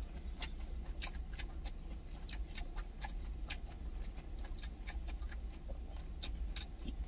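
A man chewing food with his mouth closed, heard close up as a string of small, irregular mouth clicks, over a steady low rumble in the vehicle cab.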